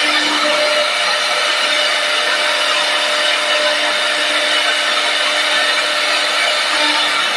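CNC wood lathe turning a wooden leg: a steady, loud cutting noise of the tool shaving the spinning wood, with a faint steady hum underneath.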